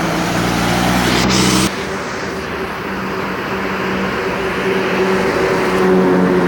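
Indonesian bus telolet horn, a set of multi-tone musical air horns, playing a run of held notes that change pitch several times. A loud rushing noise under the first notes cuts off suddenly about two seconds in.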